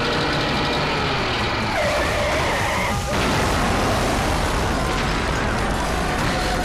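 Film chase soundtrack of a tractor's and a jeep's engines racing, with tyres skidding.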